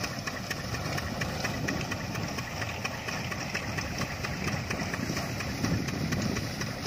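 Groundnut thresher running steadily at the field, a continuous engine-like mechanical drone with fine, regular ticking.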